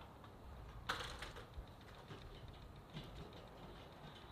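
A few light, sharp clicks and knocks over faint low background noise, the loudest about a second in.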